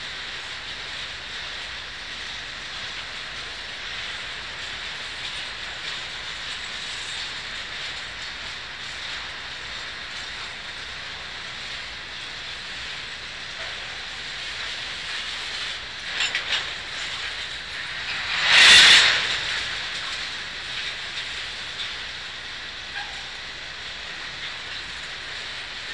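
Freight train of open-top hopper cars rolling past: a steady rushing noise of steel wheels on rail, with a few faint clicks. About two-thirds of the way through, a louder rushing burst lasts about a second.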